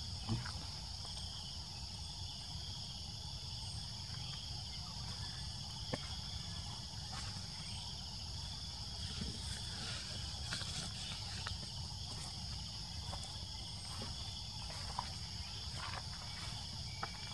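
Steady high-pitched chorus of insects such as crickets or cicadas, over a low background rumble, with a few faint scattered clicks.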